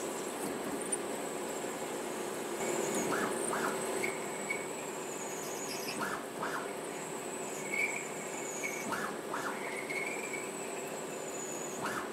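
CNC lathe deep-hole drilling a 5.5 mm hole into a spinning metal bar under coolant: a steady hum and a high, thin whine that dips in pitch now and then. About every three seconds comes a pair of short scraping sounds as the drill pecks in and out to clear chips.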